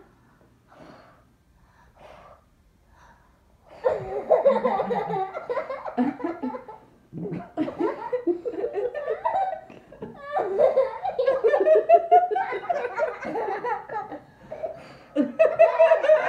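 A few faint puffs of breath, then about four seconds in, hearty belly laughter breaks out and goes on in bursts with short pauses.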